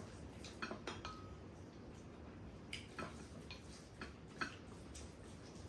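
Spoons and chopsticks clinking and tapping against bowls and dishes during a meal: about eight light, irregular clicks, one about a second in leaving a short ringing tone.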